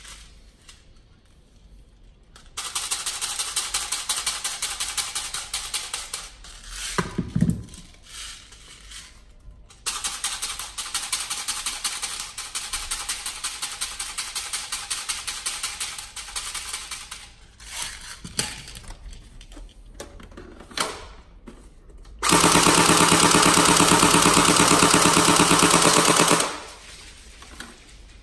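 Tokyo Marui AA12 electric airsoft shotgun, fitted with an M90 upgrade spring and a high-torque motor, firing full-auto in one sustained burst of about four seconds near the end. Before that come two quieter stretches of fast clicking.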